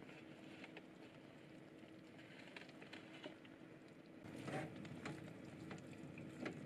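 Faint sizzle of thin beef slices in a hot pot of onions, with soft patter and small clicks, a louder rustle about two-thirds of the way in as more meat slides off a paper tray, then chopsticks stirring near the end. A steady low hum lies under it.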